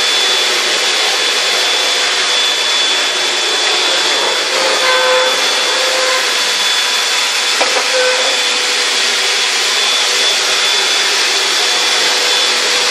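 Vacuum cleaner running steadily: a loud, even hiss with a thin high whine over it. A few faint short tones come about five and eight seconds in, with a single tick just before the second.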